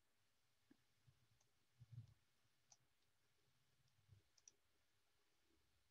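Near silence: faint room tone with a few scattered soft clicks and one soft low bump about two seconds in.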